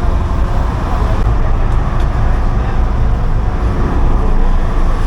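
Whale-watching boat's engine running steadily, a loud low rumble with wind and water noise over it.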